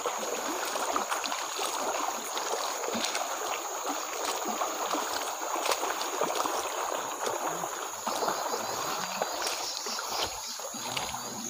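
Footsteps wading and splashing through a shallow, stony stream, with irregular small splashes over the steady rush of flowing water.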